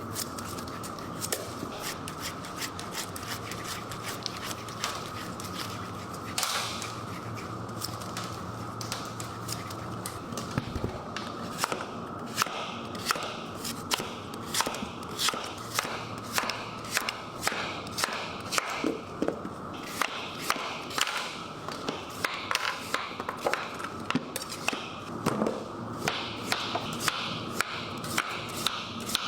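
Large meat-processing machine running with a steady motor hum, with sharp knocks and clatter that become frequent about halfway through, a few each second.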